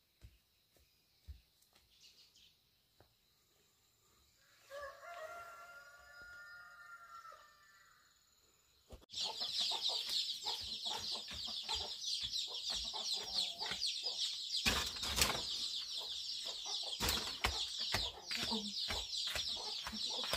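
A rooster crows once, a drawn-out call lasting a few seconds. Then a flock of chickens starts up abruptly, clucking and calling busily with scattered knocks.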